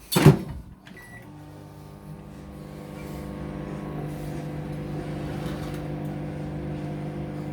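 A loud thump, then a short electronic beep about a second in, and the microwave oven starts up and runs with a steady hum that grows a little louder over the next couple of seconds, on a short ten-second heat.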